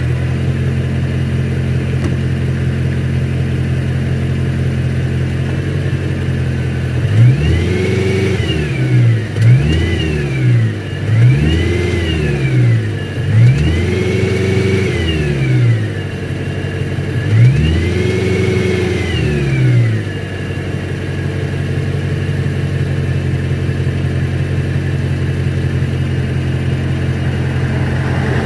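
BMW E92 M3's 4.0-litre V8 idling steadily, then blipped about six times in the middle, each rev rising and falling back to idle, before settling at idle again. It is recorded to show a ticking that comes in when warm at low revs, which the owner traced to the transmission heat shield touching the exhaust.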